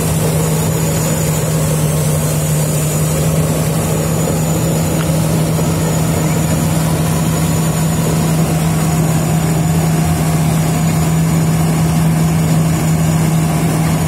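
Kartar tracked rice combine harvester running steadily while cutting paddy: its diesel engine and machinery give a constant drone with a strong, even low hum.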